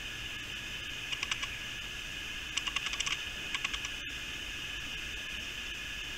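Wallaby chewing crispy fried chicken, heard as short runs of crisp crunching clicks, three bursts over a steady hiss. The sound cuts out for an instant about four seconds in.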